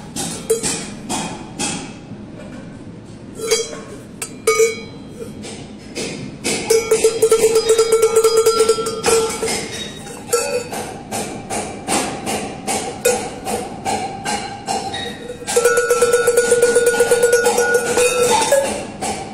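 Muhacir-type sheep bells shaken by hand, their clappers clanking against the metal bells. There are two spells of rapid ringing with a clear steady tone, about six seconds in and again about fifteen seconds in, with scattered single clanks between.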